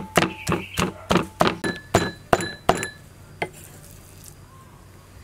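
Cleaver chopping pork belly and shrimp on a cutting board, about three even chops a second. The chopping stops about three seconds in, with one last chop shortly after.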